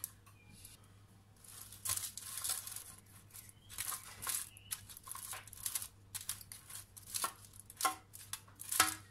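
Metal tongs spreading crinkle-cut fries across an aluminium-foil-lined baking tray: foil crinkling and scraping in repeated short bursts, with a few sharper metal clicks of the tongs near the end.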